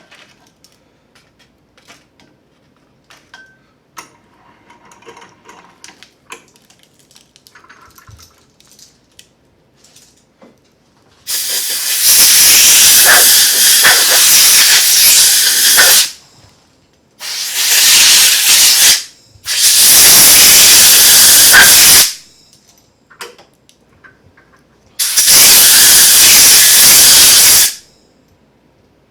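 Soft clicks and rustles of handling, then four loud bursts of steady hissing, each two to five seconds long, with short gaps between them, during the aluminium-plate quench of a foil-wrapped stainless steel test piece.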